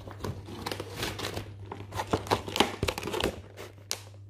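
Thin clear plastic food container crinkling and crackling as it is handled, with a sharper click near the end.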